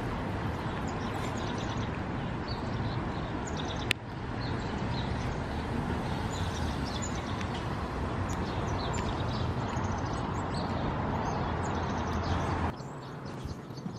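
Outdoor background noise: a steady low rumble with small birds chirping now and then. A single sharp click about four seconds in, and the rumble drops away suddenly near the end.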